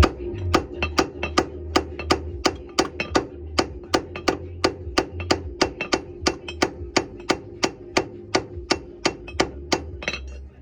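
Hammer blows on a steel wheel hub and its studs, a fast, even series of about three or four strikes a second, driving out the bad wheel studs. Music plays underneath.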